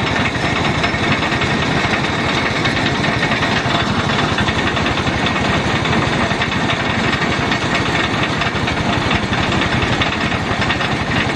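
Engine-driven rice threshing machine running steadily, with a fast, even clatter.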